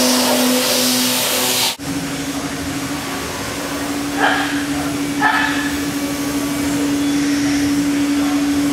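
CNC router spindle running steadily while milling 6061-T6 aluminum under mist coolant: a steady whine over a loud hiss. About two seconds in the sound cuts to a 5-axis gantry router's spindle carving a block, a steady whine with two short louder bursts a second apart.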